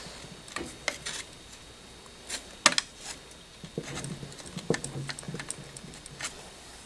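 Irregular light metal clicks and taps, with one sharper knock a little under three seconds in, as a water pump is worked loose from an engine case by hand and tool.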